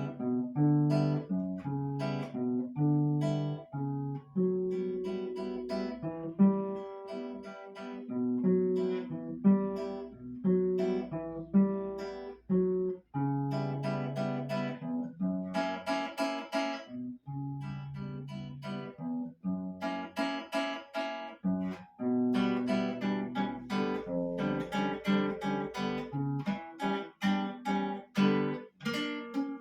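Solo acoustic guitar playing a plucked piece: a steady stream of picked notes over lower held bass notes.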